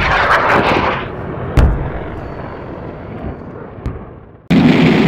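Battle sound effects of explosions and gunfire. A loud blast comes at the start, a single sharp shot about a second and a half in, then a fading rumble. Another explosion cuts in suddenly near the end.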